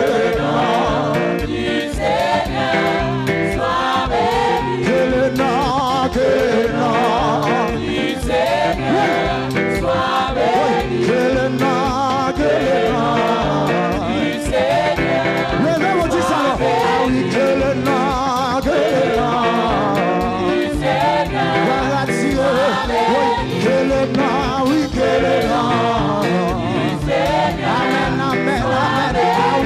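Gospel praise music: singing voices with vibrato over an instrumental backing with a steady beat.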